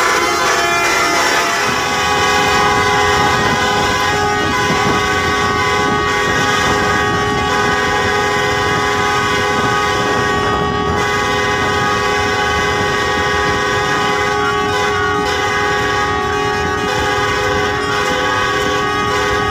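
A bus's multi-tone air horn sounding continuously as a held chord, over the bus's engine and road rumble.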